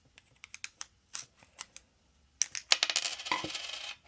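Small sharp clicks, then about a second and a half of scraping and rattling, as a CR2032 coin-cell battery is worked into the key fob's plastic battery holder where it had got stuck.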